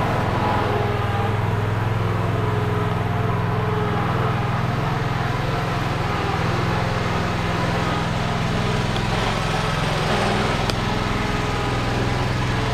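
Engine running steadily at a constant speed, a continuous even drone.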